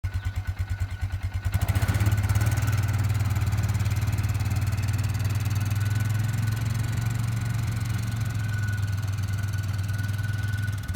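An engine turning over with rapid even pulses for about a second and a half, then catching and running at a steady idle with a faint high whine.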